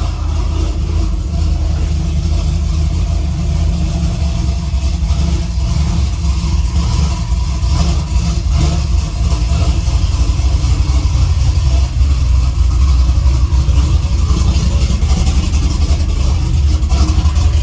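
Cammed 6.0-litre LS V8 of a Chevrolet Silverado pickup idling steadily, running again on a newly fitted fuel pump.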